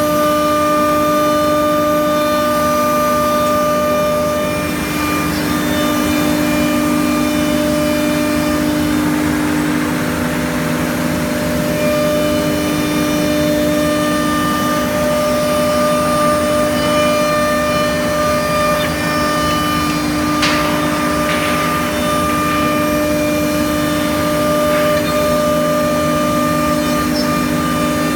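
CNC router spindle running and cutting 18 mm melamine-laminated MDF: a steady, loud whine with overtones over the rasp of the cutter in the board. A few brief sharp scrapes stand out about two-thirds of the way through.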